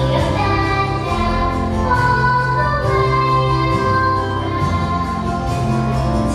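Music with singing: a song with long held sung notes over a steady accompaniment.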